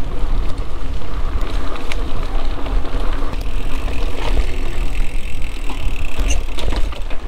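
Mountain bike being ridden along a dirt trail: tyres rolling over the ground, with scattered clicks and rattles from the bike over bumps, under a heavy, steady wind rumble on the microphone.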